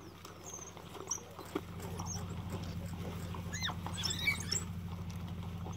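African wild dogs giving high-pitched twittering calls and squeals: a few short chirps at first, then a quick run of rising and falling squeals about three and a half seconds in. The calls sound over a steady low hum.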